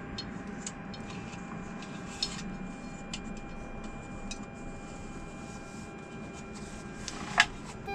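Soft rubbing and scattered small clicks of a rubber O-ring being worked by hand onto the rim of an aircraft avionics extract fan's metal casing, with a sharper click near the end. A faint steady hum runs underneath.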